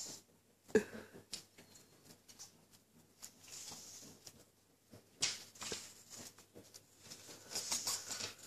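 Quiet, scattered clicks and rustles from a blue-and-gold macaw lying on her back and playing, her beak and feet working a small hanging toy and scuffing the seed litter, with a few louder scuffs about five seconds in and near the end.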